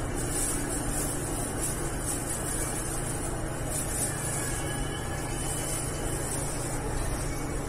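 Electric commuter train running through a tunnel, heard from the driver's cab: a steady rumble of wheels on rail with a low hum.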